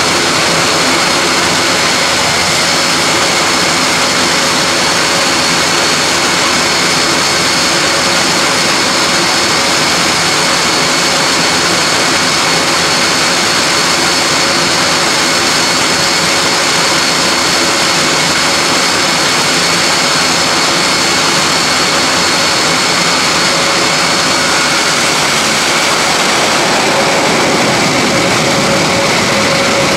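The four Europrop TP400 turboprop engines of a Royal Air Force Airbus A400M running at ground idle: a loud, steady rush with a high whine. The lower hum drops away near the end.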